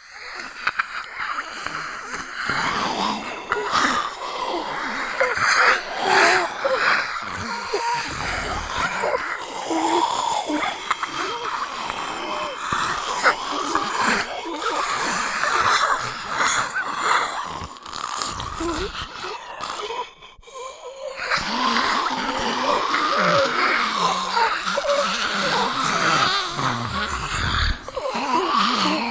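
Zombie voice sound effects: a human voice making continuous zombie groans and growls, with a brief break about twenty seconds in.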